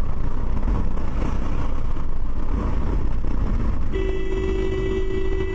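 Steady low road and engine rumble inside a car cruising at highway speed, about 105 km/h. About four seconds in, a vehicle horn sounds and is held as one steady note as a dump truck crosses the road ahead.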